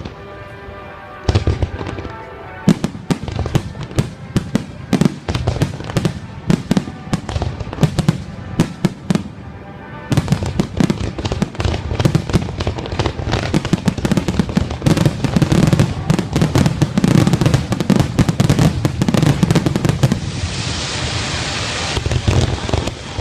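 Aerial fireworks shells bursting: separate booms about every half second, then from about ten seconds in a dense barrage of rapid bangs and crackle, which gives way near the end to a hissing crackle.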